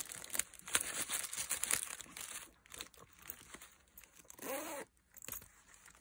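Rustling and crinkling as makeup brushes are slid into a fabric pouch, loudest in the first two seconds, then quieter handling as the pouch's zip is closed.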